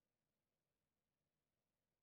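Near silence: the sound track has faded out.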